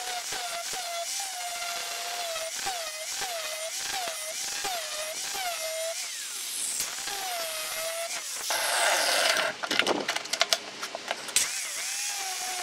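Angle grinder grinding a steel chainsaw bar, its motor whine dipping in pitch and recovering about twice a second as the disc is pressed into the metal. Near the end the whine breaks off for a short burst of louder noise and a run of sharp clicks and knocks, then the grinder whine starts again.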